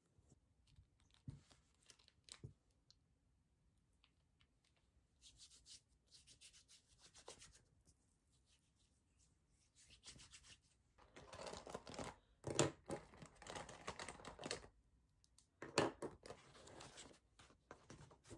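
Hands rubbing together, skin on skin, in stretches of dry rubbing, the loudest a few seconds long past the middle. A couple of soft knocks come in the first few seconds, and near the end a thick book is opened with a rustle of pages.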